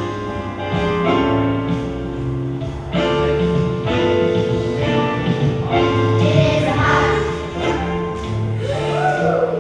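A children's choir singing with instrumental accompaniment, the voices strongest in the second half.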